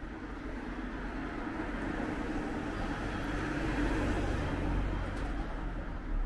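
A car passing close by on the street, its tyre and engine noise swelling to a peak midway and then falling away.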